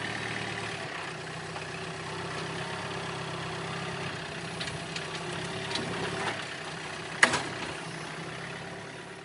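An engine idling steadily, with a few light clicks and one sharp knock about seven seconds in.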